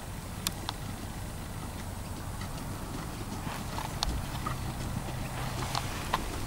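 Hoofbeats of a Standardbred mare trotting on a dirt arena, with scattered sharp clicks over a low background rumble.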